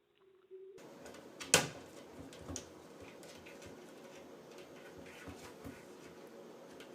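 A single sharp knock about a second and a half in, followed by scattered small clicks and knocks over steady room noise.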